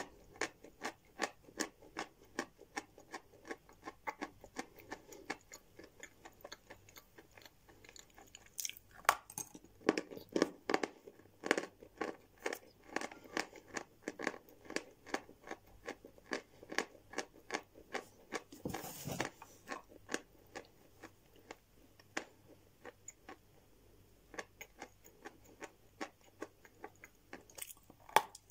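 A person chewing a mouthful of Valuychik natural chalk, a dry, dull crunching made of many small irregular crackles, with fresh bites now and then.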